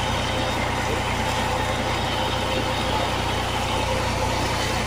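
Irrigation tubewell running: a steady low drone from the pump drive, with water rushing out of the discharge pipe into the tank.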